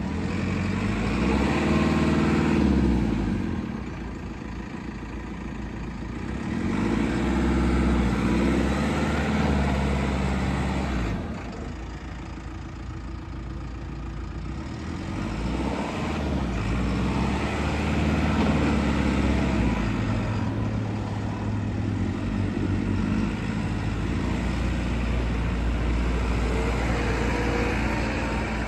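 2017 JCB 3CX14 Super backhoe loader's diesel engine running, its speed rising and falling about three times over the first twenty seconds, then holding steady to the end.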